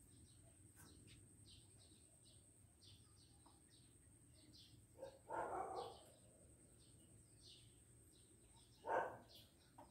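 Quiet rural background of small birds chirping over and over, with a dog barking twice, about five and nine seconds in.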